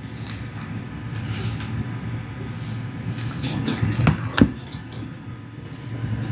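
Handling noise: faint rustles and small knocks over a low steady hum, with two sharp knocks close together about four seconds in.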